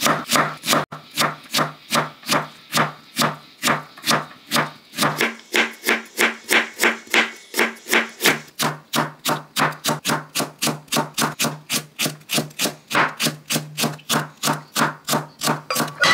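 Kitchen knife chopping rapidly on a cutting board, a steady run of sharp knocks at about three a second that stops abruptly at the end.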